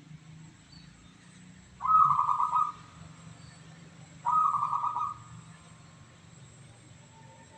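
Zebra dove (perkutut) cooing: two short, stuttering coos about two seconds apart.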